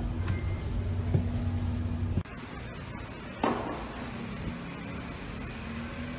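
A steady low mechanical hum that cuts off abruptly a little past two seconds in. About a second later comes a single sharp knock, then a quieter, even background hum like a fan or air conditioning.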